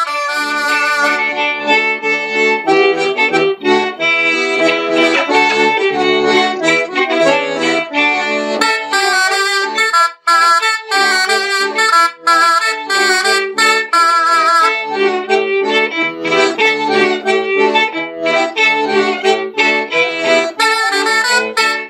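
Breton folk ensemble playing an hanter dro dance tune on two flutes, a diatonic button accordion and a fiddle together, with a momentary break about ten seconds in.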